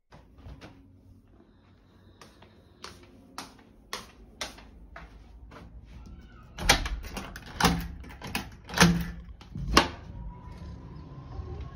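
A door being unlatched and opened by hand: a series of light clicks, then four louder knocks and clunks about a second apart.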